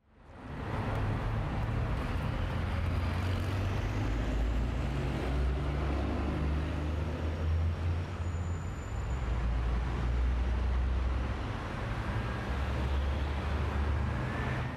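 Street traffic noise: a steady low rumble of passing road vehicles, fading in at the start and out at the end.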